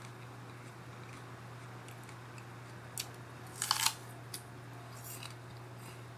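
A crisp bite into a raw apple about halfway through: a short crunch, just after a single click, followed by a couple of faint ticks. A steady low hum runs underneath.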